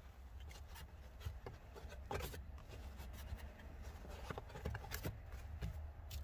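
Hands rustling and tucking a trunk floor liner around a wiring module, with scattered soft taps and clicks, the loudest about two and five seconds in, over a faint steady low hum.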